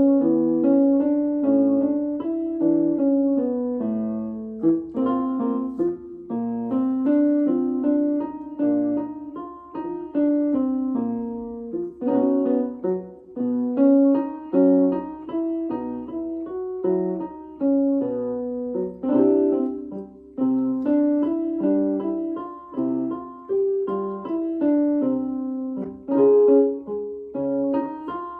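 Piano accompaniment for a singing exercise: a short pattern of notes played over and over, each repeat starting a little higher, leaving room for the student to sing ah to aw along with it.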